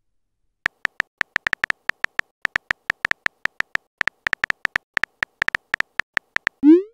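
Phone keyboard click sound effects: a rapid run of short, identical ticks as a text message is typed letter by letter. Near the end comes a loud rising swoosh, the message-send sound.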